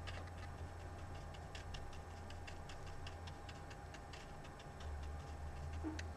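Faint, quick ticks, several each second, of a paintbrush dabbing and spreading a blob of white liquid on a plastic blaster shell, over a low steady hum.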